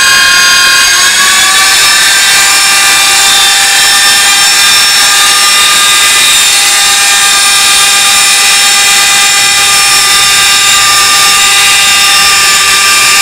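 Electric motor of a haleem blending machine, mounted on the lid of a large aluminium degh, running with a loud, steady high whine. Its pitch creeps up in the first second as it reaches full speed, then holds. It is turning a blade that grinds and mixes the thick cooked haleem.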